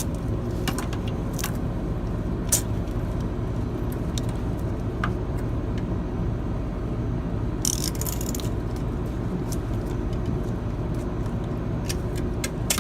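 Steady low machinery hum with scattered small metallic clicks and a brief rustling scrape about eight seconds in, as hand tools and parts are handled during the crankcase heater work.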